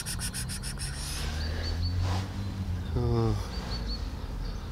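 A low steady hum, then about three seconds in one short wavering trill-like call close to the microphone. Faint high chirps come in quick threes every couple of seconds.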